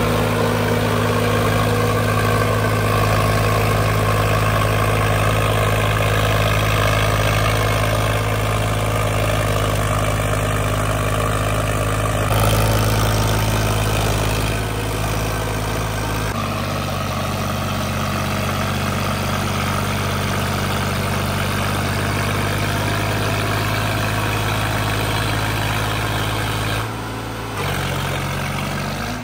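Diesel tractor engine running steadily at low speed. Its steady hum changes abruptly a few times, about 12, 16 and 27 seconds in.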